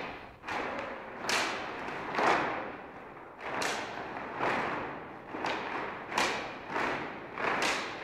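Large cloth flags swung and tossed by two flag-throwers, the fabric swishing and flapping through the air about once a second.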